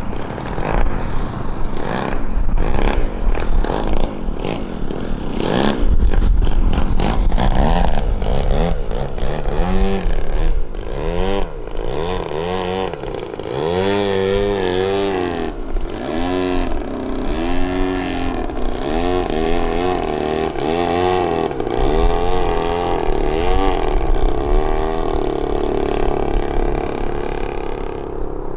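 Engine and propeller of a 3D aerobatic RC plane hanging nose-up on its prop. The throttle is worked up and down over and over, so the pitch rises and falls about once a second.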